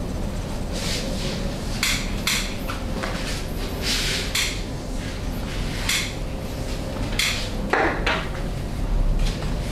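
Massage strokes landing on a client's body: about a dozen slaps and taps at uneven intervals, over a steady low hum.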